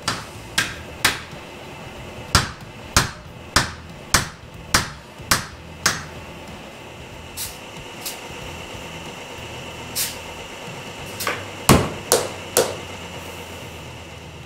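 Sharp hammer blows while truck tyres are fitted to steel rims: a steady run of about ten strikes, roughly one every 0.6 s, then a few scattered ones and a louder cluster near the end. A steady high hiss runs through the middle, while the tyre is being inflated on the air line.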